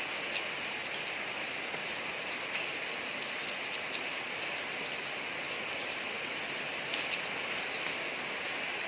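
Steady rain falling on a street: an even hiss with scattered sharp drop ticks.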